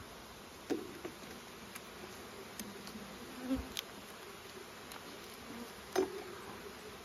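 Honeybees buzzing steadily over an open brood box, with a few short clicks and knocks as a metal hive tool pries at the wooden frames, the clearest about a second in and near the end.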